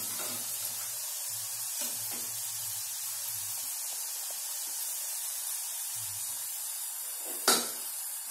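French fries deep-frying in hot oil in a kadhai over a low gas flame: a steady sizzling hiss. One sharp clank about seven and a half seconds in.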